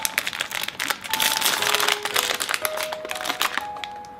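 Crinkling of a plastic instant-ramen packet (Nissin Chicken Ramen) as hands pull it open, a dense run of rapid crackles, with a brief lull near the end.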